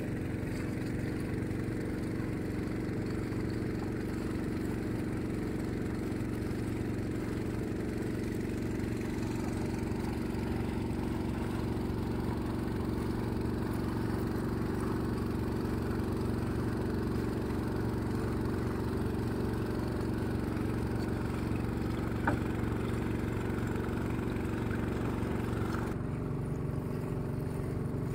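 Engine of a small river-crossing passenger boat running steadily at a constant speed, with one short sharp click about three-quarters of the way through.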